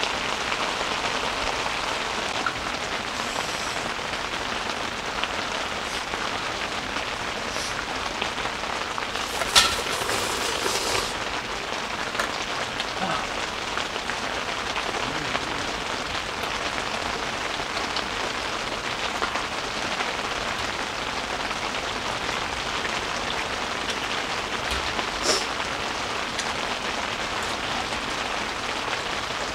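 Steady rain falling on the fabric of a one-touch tent, heard from inside the tent, with scattered faint ticks of drops. A couple of short louder noises stand out, the loudest about ten seconds in.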